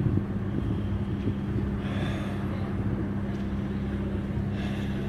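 An engine running steadily with an even, unchanging low hum.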